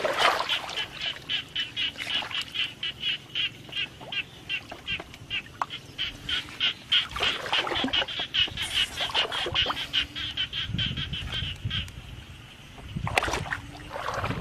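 A frog calling in a rapid, even series of short pulses, about five a second, that stops about twelve seconds in. Water splashes a few times, loudest near the start and again near the end.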